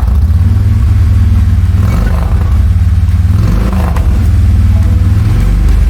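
Harley-Davidson V-twin motorcycle engine running steadily, a low even pulsing sound.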